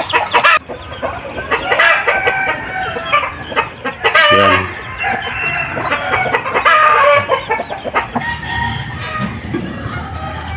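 Chickens clucking and calling over one another, many short pitched calls overlapping and repeating all through.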